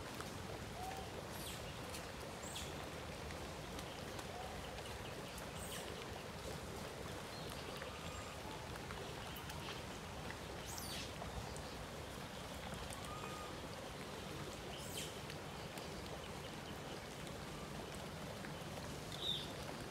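Steady rain pattering on wet ground and puddles, with scattered drips. A few faint short chirps sound through it, and one sharper high chirp comes near the end.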